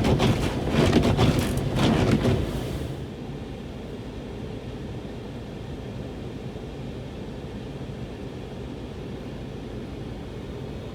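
Steady low rumble of a vehicle heard from inside the cabin while driving. The first three seconds also hold a run of knocks and bumps, which then stop.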